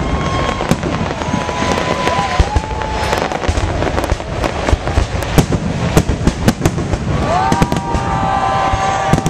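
Fireworks display: a dense run of sharp bangs and crackling from aerial shell bursts. High held tones with slight bends come through about a second in and again in the last two seconds.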